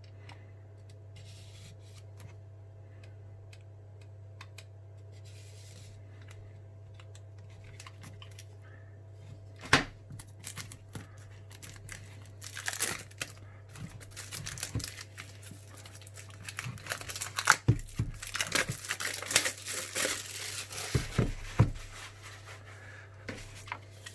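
Packaging on a phone's retail box being torn open and crinkled by hand. One sharp rip comes about ten seconds in, then a busy stretch of crackling and tearing through the second half, over a low steady hum.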